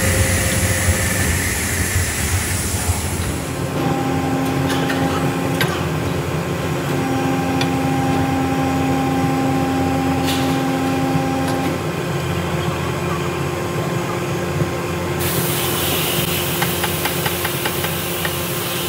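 Steady drone of running foundry furnace machinery, with a few held hum tones. A few brief taps and scrapes of a steel skimmer against the crucible as dross is skimmed off the molten metal.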